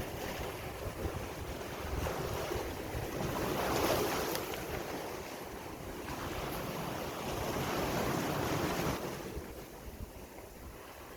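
Sea waves breaking and washing on the shore, swelling twice and easing off near the end, with wind buffeting the microphone.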